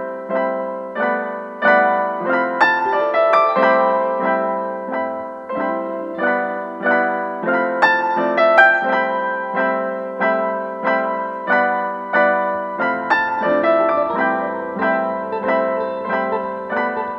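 Background piano music: a steady run of struck notes, each fading away, about two a second.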